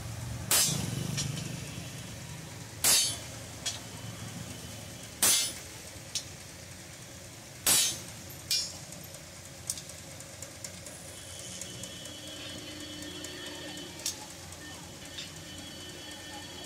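Sledgehammer blows on a rod-handled blacksmith's cutting chisel set on steel rebar over an anvil: four heavy metal strikes about two and a half seconds apart, each followed by a lighter knock. After the fourth blow only small light clinks of metal remain.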